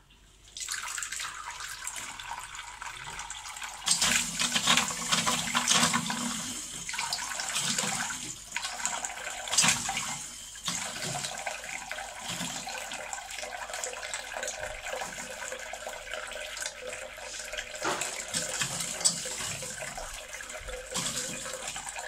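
Ideal Standard toilet cistern refilling through its quarter-turn inlet float valve, fitted with a new diaphragm. Water hisses and splashes in, starting abruptly about half a second in, louder for several seconds from about four seconds in, then a steady hiss.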